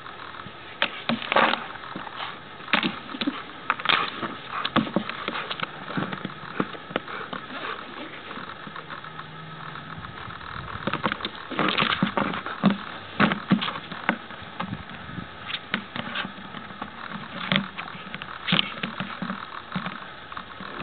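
Irregular sharp clicks and knocks over a faint steady hum. The clicking comes from an ageing camera's mechanism, mixed with the knocks of a hollow plastic flower pot being pushed and mouthed by a malamute.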